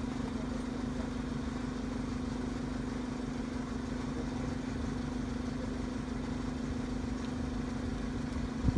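Van engine idling steadily, a low hum with a fast, even throb, with one brief knock near the end.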